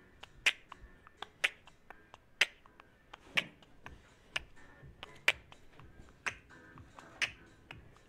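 Background music: a sparse track with a sharp, snap-like click on the beat about once a second over faint sustained tones.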